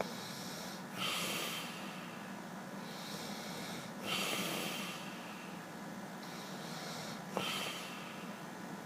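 Snoring sleeper: slow, noisy breaths swelling about every three seconds, with a short sharp snort a little past the middle.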